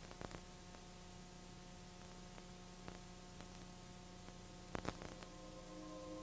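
Faint steady hum and hiss of recording noise, with a few scattered faint clicks and a short crackle about five seconds in; no other sound is present.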